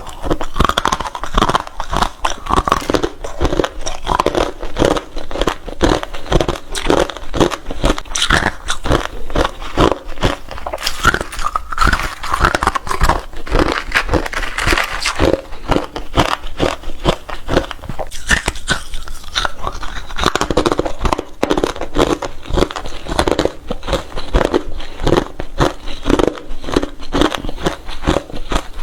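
Hard ice being bitten and chewed close to the microphone: a rapid, continuous run of sharp crunches.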